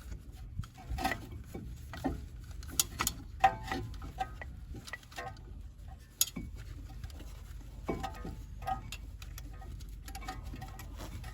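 Irregular metallic clicks and clinks as a steel C-clamp and an old brake pad are handled and set against a brake caliper piston, over a steady low hum.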